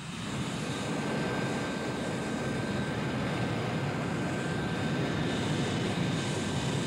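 Northrop F-5's twin General Electric J85 turbojets running as the fighter taxis on the ramp: a steady jet noise with a thin high whine held through it, coming up sharply at the start.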